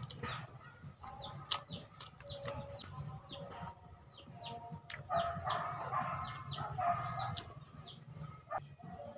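Chickens calling in the background, clucking with what sounds like a rooster crowing, loudest from about five to seven and a half seconds in. Over this, a small bird gives short falling chirps about two or three times a second, and sharp clicks of chewing and eating by hand sound close to the microphone.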